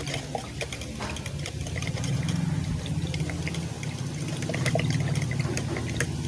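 Water sloshing and trickling as soluble antibiotic powder is mixed into a plastic chicken waterer to dissolve, with scattered small clicks over a steady low hum.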